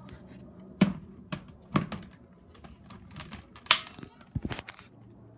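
Sharp plastic clicks and knocks from handling an upright vacuum cleaner while its motor is off, about six in all, the loudest about a second in and near four seconds in.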